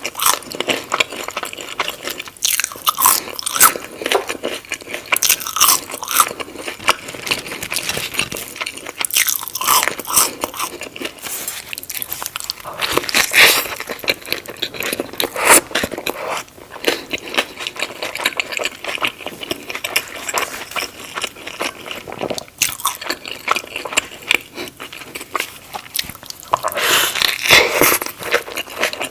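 Close-miked eating: repeated crunchy bites and wet chewing, crackling irregularly throughout.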